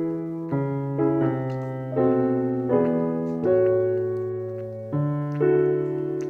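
Background piano music: slow chords struck about once a second, each left to fade before the next.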